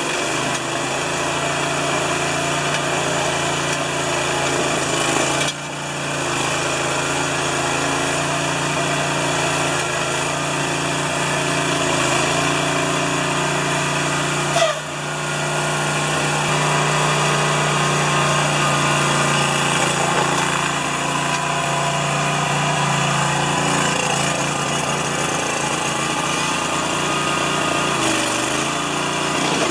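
Small engine-powered machine running steadily under load, with brief dips in level about five and fifteen seconds in.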